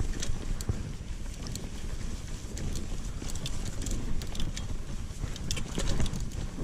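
Mountain bike ridden along a dirt trail: a steady low rumble of tyres and wind on the microphone, with frequent sharp clicks and rattles from the bike going over the trail.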